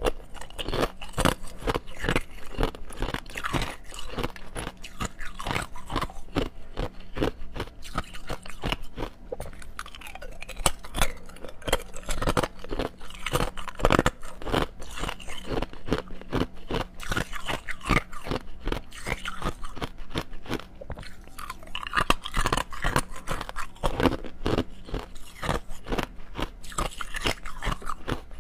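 Clear ice cubes being bitten and chewed close to a clip-on microphone: a dense, continuous run of sharp crunches and cracks.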